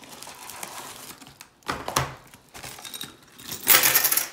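Hands rummaging in a paper mailer and pulling out a small plastic bag of metal pins: soft rustling, a few sharp knocks about halfway, then a loud crinkle with a metallic clink near the end.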